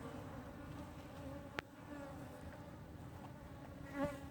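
Honeybees buzzing steadily around an opened hive, with one sharp click about a second and a half in.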